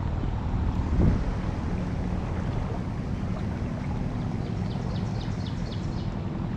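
Steady rush of a small trout stream's flowing water, mixed with wind rumbling on the microphone, swelling briefly about a second in. From about four to six seconds in, a quick run of short high chirps sounds above it.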